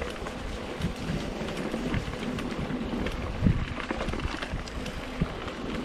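Mountain bike riding over a bumpy dirt forest trail: the bike rattles and knocks over the ruts, with a harder jolt about three and a half seconds in, and wind buffets the microphone.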